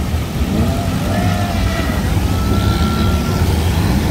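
Engines of several open-top vintage jeeps running as they drive through a shallow river, with water splashing. A steady low rumble carries throughout, with rising and falling tones above it.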